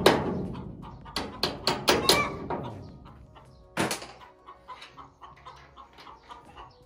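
Hammer blows on steel at the bearing housing of a Bizon forage harvester: sharp ringing strikes, several in quick succession in the first two seconds and one more near four seconds. Hens cluck softly through the second half.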